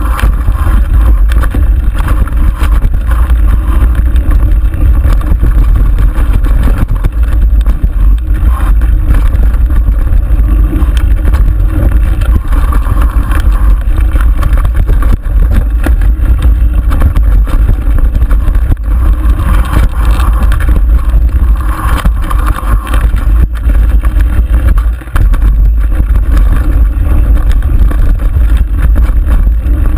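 Mountain bike descending a rough dirt singletrack: heavy, steady wind rumble on the microphone with a constant rattle and knocking of the bike over the trail, briefly easing about 25 seconds in.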